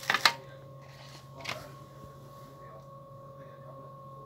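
Clear plastic food-storage containers being handled: a quick run of sharp clicks and knocks at the start and one more knock about a second and a half in, over a steady hum.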